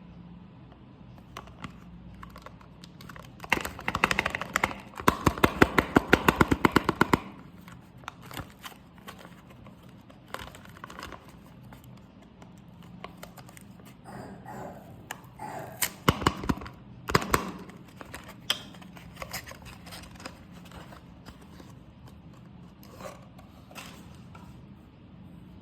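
Soap packaging being handled and opened by hand: a run of rapid crackling clicks lasting about three seconds, then scattered clicks and rustles a little past the middle.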